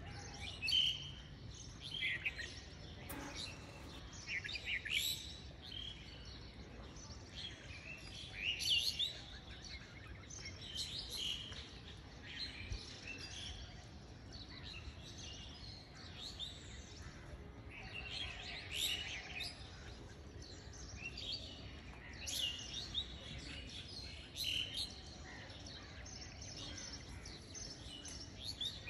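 Small birds chirping and calling in short, repeated bursts.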